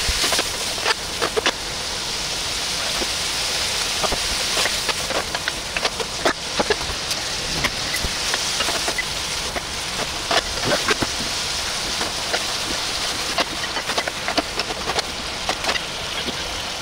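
Cubed beef searing in hot oil in a nonstick frying pan: a steady sizzle with scattered pops and crackles.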